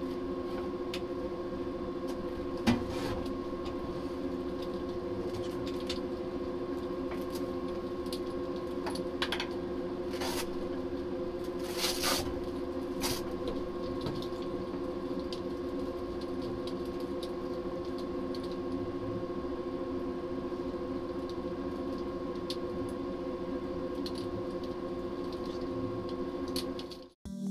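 Steady hum of the space station's ventilation fans and equipment, several tones held level, with a few short clicks and rustles as small parts are handled. The hum cuts off suddenly at the very end.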